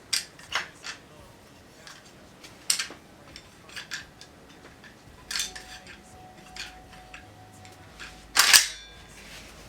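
Metal firearm parts being handled: scattered light clicks and clacks as a gun is worked on, with one louder metallic clack about eight and a half seconds in.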